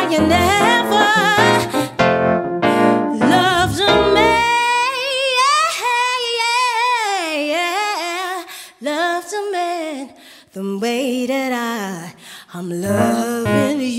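Female soul vocalist singing long, ornamented runs with vibrato over piano chords. About four seconds in the piano drops out and the voice carries on alone, and the piano comes back in near the end.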